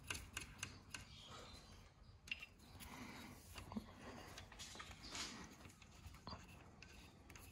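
Faint scattered clicks and light metal scraping as loosened tailshaft-to-differential flange bolts and nuts are turned out by hand.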